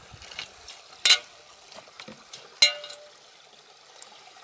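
Faint trickle of water in a stone fountain basin, with two sharp clicks about a second and two and a half seconds in, the second trailing a short ringing tone.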